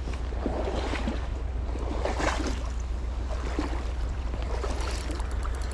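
Creek water sloshing and splashing in several swells, like a person wading through a current, over a steady low rumble of flowing water.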